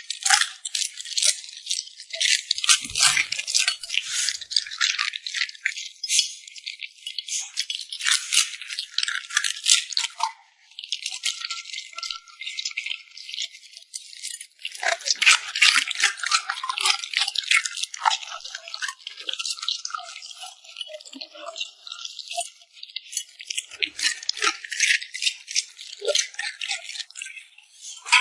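A dog crunching and chewing hard, crisp food close to the microphone, with rapid crackling bites and two short pauses.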